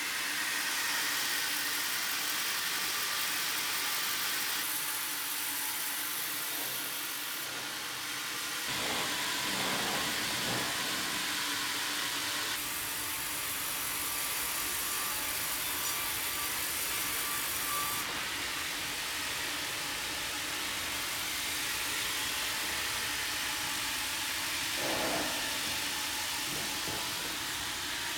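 Steady machine noise, a motor running with a whirring hiss and a faint hum, its character shifting abruptly several times.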